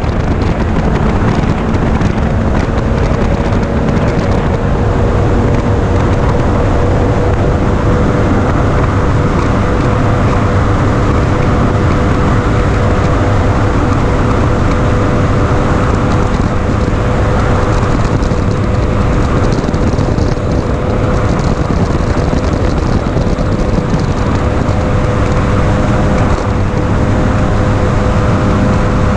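A 2017 Bullet 20XDC bass boat's 300XS outboard running at steady high speed, holding one even pitch, with the rush of the hull on the water.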